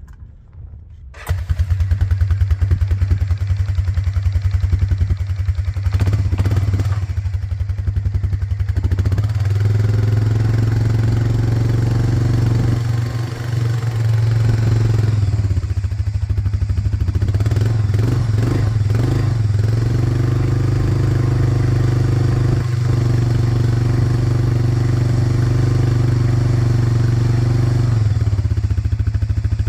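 1999 Honda TRX300FW ATV's single-cylinder four-stroke engine starting up about a second in and then idling steadily, freshly refilled with oil.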